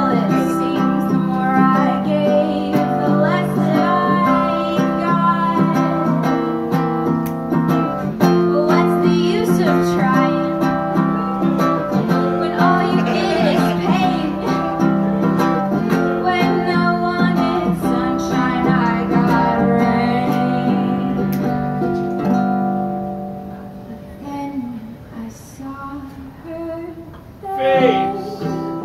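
A woman singing live, accompanying herself on a strummed small acoustic guitar. The music drops to a quieter passage about three quarters of the way through, then comes back with a loud sung phrase near the end.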